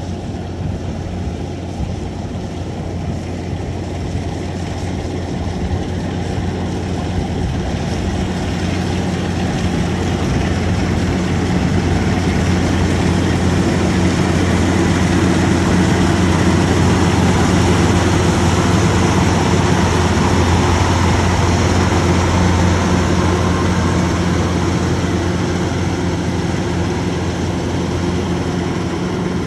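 Kubota DC-105X rice combine harvester running at work, its diesel engine and machinery giving a steady low drone that grows louder toward the middle and eases off a little near the end.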